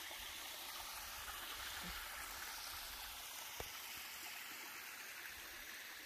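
Faint, steady hiss of shallow creek water trickling over granite.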